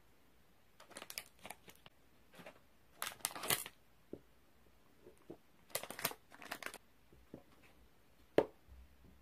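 Plastic ice cream bar wrappers crinkling and tearing in several bursts as chocolate-coated ice cream bars are unwrapped. Near the end there is one sharp tap, as a bar is set down on the table.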